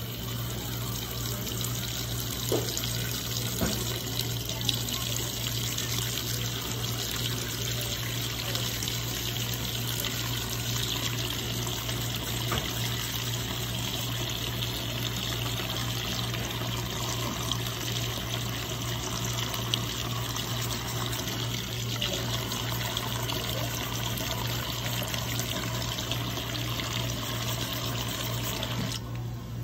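Faucet running steadily into a sink, a constant rush of water over a steady low hum, dipping briefly near the end.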